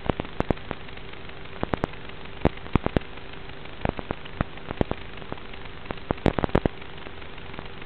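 Steady static hiss with a faint steady hum, broken by irregular clusters of sharp crackling pops, on the audio of an analog FPV video downlink.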